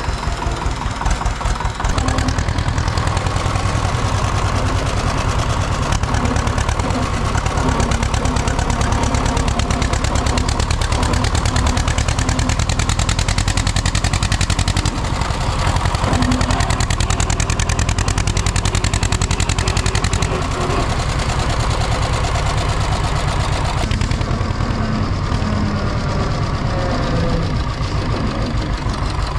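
Zetor 25K tractor's two-cylinder diesel engine running steadily, a little louder from about two seconds in.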